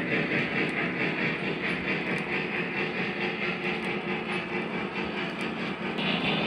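Model passenger cars rolling along three-rail O gauge track: a steady metallic rumble of small wheels on the rails with faint clicks. The sound grows louder near the end.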